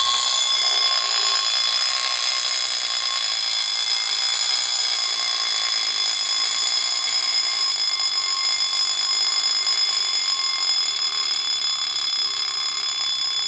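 The alarm bell of a 1920s Jaeger eight-day travel alarm clock, ringing steadily. It was set off by advancing the clock's hands to the alarm setting.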